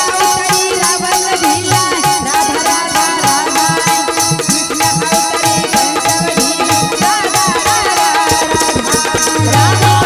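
Live Indian folk-style music: a girl's voice sings into a microphone over quick, steady hand percussion and held accompanying tones.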